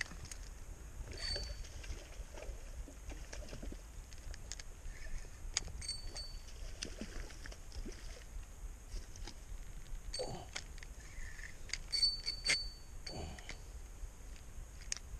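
Fishing reel and rod worked while fighting a hooked redfish: scattered sharp clicks and several short high metallic pings, over a steady low rumble.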